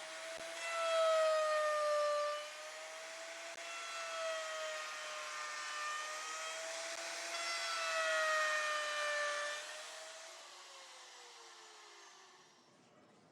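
CNC router spindle whining as it carves MDF, its pitch wavering slightly with the cutting load over a hiss of cutting. About ten seconds in, the whine glides down in pitch and fades as the spindle spins down.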